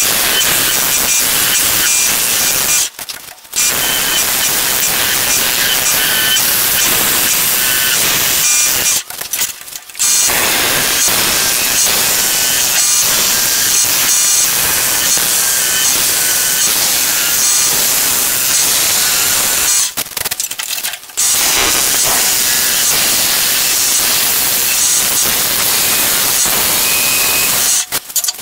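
Skew chisel cutting a spinning, partly green log on a wood lathe: a loud, steady hiss of shavings peeling off the wood. It breaks off briefly three times when the tool comes off the wood and stops near the end.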